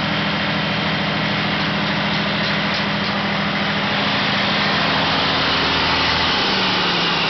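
Caterpillar diesel generator engine running steadily with a constant, even note. About six seconds in, its pitch drops slightly.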